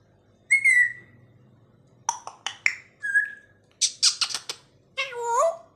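African grey parrot calling in a string of separate sounds. A whistle comes about half a second in, then a quick run of short clicking calls and a brief whistle, then harsh squawks, and near the end a drawn-out call that bends in pitch.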